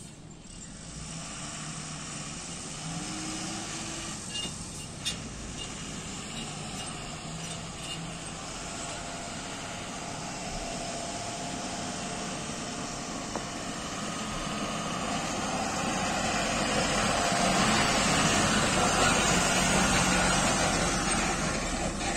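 Heavy diesel dump truck's engine running as the truck drives slowly over a rutted dirt track, growing steadily louder as it comes near and passes close by. A couple of brief clicks about four to five seconds in.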